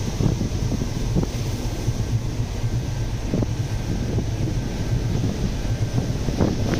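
Strong wind buffeting the microphone in irregular gusts over a steady low rumble, at sea in very rough weather.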